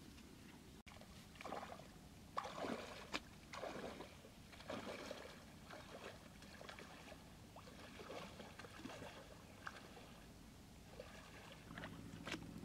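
Faint, irregular sloshing and splashing of footsteps wading through shallow water, with the swish of tall grass against the legs.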